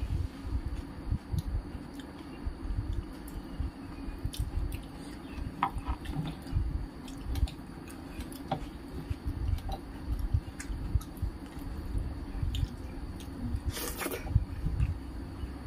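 Close-miked wet eating sounds: a bare hand squishing and mixing rice with thin curry on a steel plate, and chewing with a full mouth, with scattered small clicks over a steady low hum. A brief louder rustle comes near the end as a handful is lifted to the mouth.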